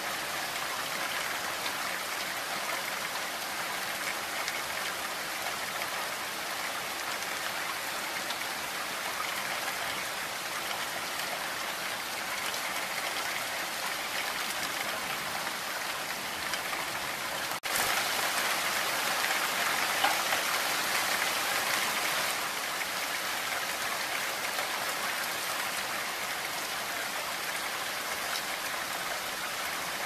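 Steady rain falling on spruce trees, an even hiss of drops on needles and branches. Just past halfway it cuts out for an instant, then comes back louder for about five seconds before settling to its earlier level.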